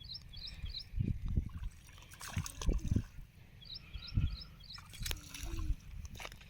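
Floodwater sloshing and splashing with irregular low thumps, and a bird chirping in two quick runs of short high notes.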